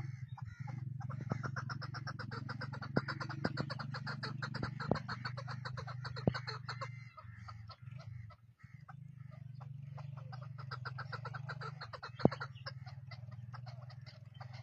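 Chukar partridge calling, a rapid chattering run of repeated 'chuk' notes, several a second. A steady low hum runs underneath and drops out for a couple of seconds midway, and there are a few sharp clicks.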